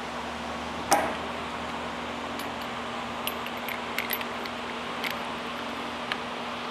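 Light metallic clinks and taps of a steel socket on a cordless drill/driver being fitted onto a fitting in an aluminium hydraulic coupler block, with one louder knock about a second in, over a steady background hum.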